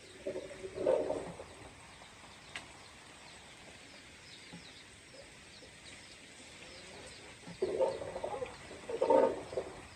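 Three short bursts of animal calls, one at the start and two close together near the end, over faint high chirping.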